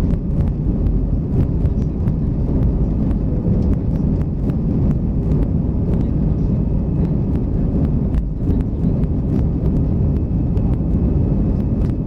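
Airbus A320 engines at take-off and climb thrust heard from inside the cabin: a loud, steady rumble and rush of air, with a few faint clicks.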